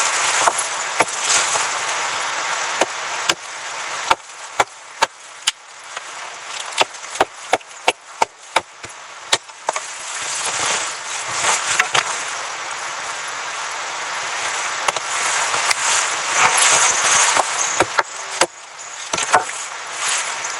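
A series of sharp, irregular knocks or cracks, clustered a second or less apart for a stretch in the middle, over a steady rustling hiss.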